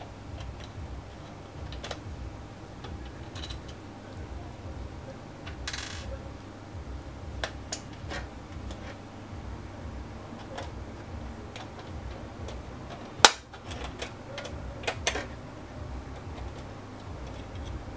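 Screwdriver working the small screws of a circuit board on the Xbox One's metal shield: scattered light metallic clicks and taps, with one sharp click about thirteen seconds in and a few more shortly after.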